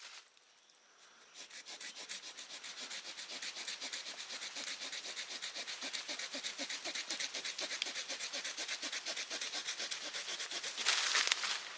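Small folding saw blade of a Swiss Army knife cutting through a green sapling near its base, a long run of quick, even strokes that grow louder. A louder rustling burst comes near the end.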